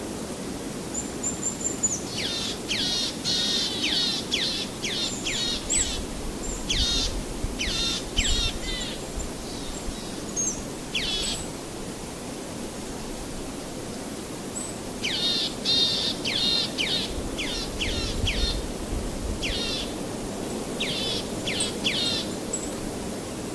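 A bird singing: runs of quick, high chirps, each sweeping sharply downward, in two long bouts. Steady low background noise runs underneath.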